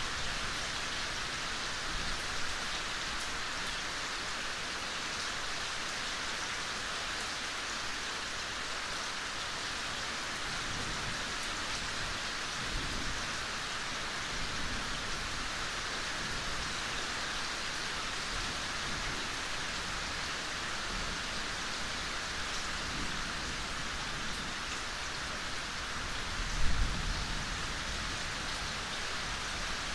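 Steady, gentle rain falling in a forest, an even hiss of drops on leaves and ground. A short low thud stands out about three seconds before the end.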